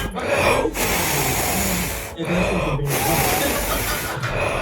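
Cat hissing, three long hisses with short pauses between them.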